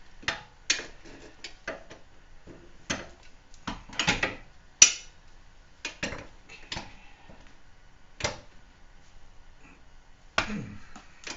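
Irregular metallic clinks and clanks of hand tools being handled at a car's rear hub: a breaker bar and sockets on the hub bolts, with a sharper clank about five seconds in.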